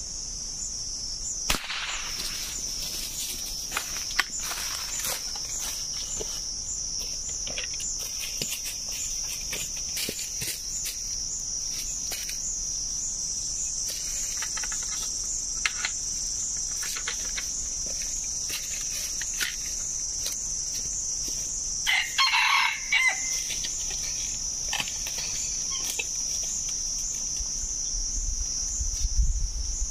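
A steady high-pitched insect buzz, with a junglefowl rooster crowing once about two-thirds of the way through.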